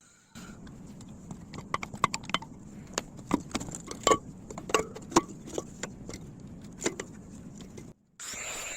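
Irregular metallic clinks and knocks, a dozen or more, some ringing briefly, as scrap metal parts are handled and struck, over a steady low hum.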